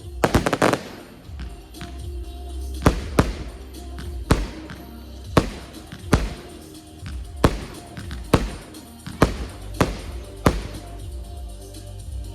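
Fireworks going off over a music track: a rapid cluster of cracking bangs about half a second in, then single sharp bangs roughly once a second.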